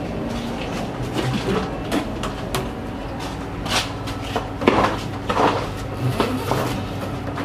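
Goods being taken off and rehung on a shop's wall display hooks: irregular clicks, knocks and rustling, with a few louder clatters in the second half, over a steady low hum.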